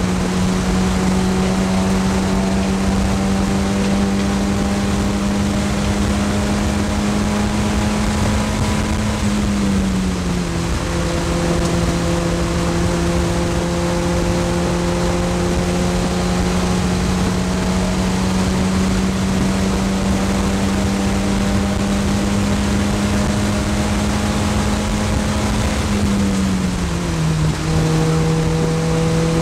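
Mazda MX-5 race car's four-cylinder engine heard from inside the cockpit, running at a steady high pitch at speed over road and wind noise. The pitch eases down about ten seconds in and again near the end, then holds steady.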